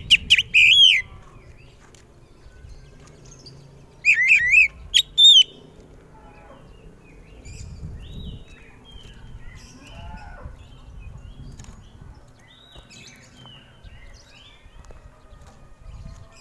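Oriental magpie-robin singing loud, clear whistled phrases with fast up-and-down pitch slides: one burst at the start and another about four seconds in. After that only softer, scattered chirps and calls are heard over a low rumble.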